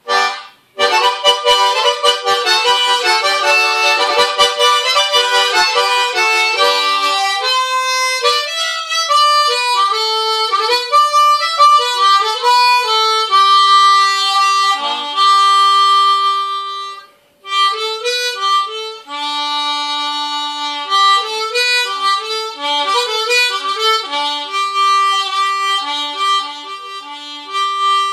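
Harmonica played solo: a tune that starts with full chords and then moves to a melody of single held notes, with a short break about seventeen seconds in.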